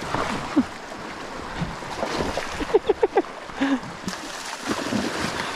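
Shallow river water running over a gravel bar in a steady wash, with a few short high squeaks about halfway through.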